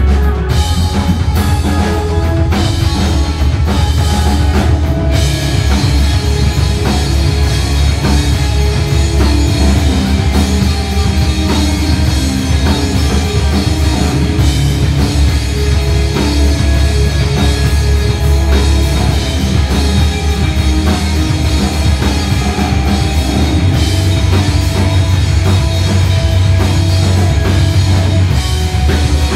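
Instrumental rock trio playing live: electric guitar, electric bass and drum kit together, with a heavy bass line and sharp drum hits.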